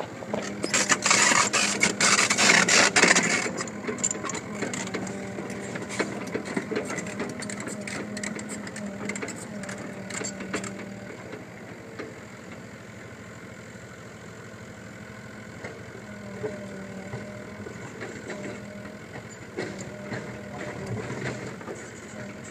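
Small backhoe's motor running with mechanical clatter, loudest and roughest over the first three seconds, then running on more steadily with scattered clicks.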